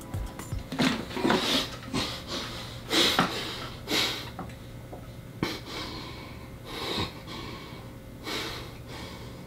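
A man breathing hard after chugging a bottle of thickened water, about eight loud, noisy gasping breaths at uneven intervals that grow weaker toward the end.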